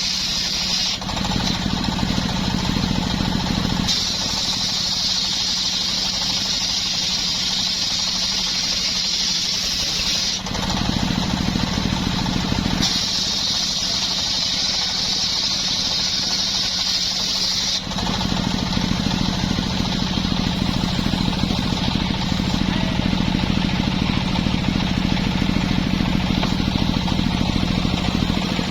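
Two-stroke chainsaw running at high speed, as when cutting wood. Its sound switches abruptly several times between a deeper engine-heavy note and a brighter, hissier cutting sound.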